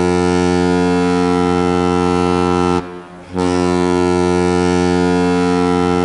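Linköping HC's ice hockey goal horn sounding a long steady blast that breaks off about three seconds in, then starts a second blast after a short pause.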